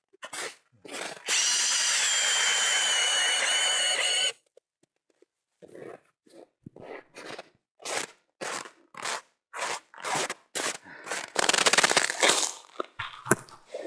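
An ice auger driven by a power drill bores for about three seconds with a steady motor whine, then stops. Footsteps then crunch in snow about twice a second, and a short burst of scraping follows near the end.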